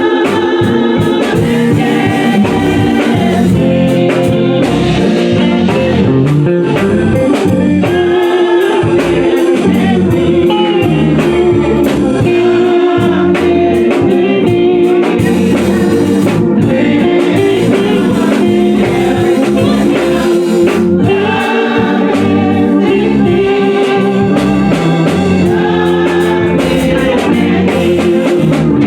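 Gospel music: singing over a band with guitar and drums.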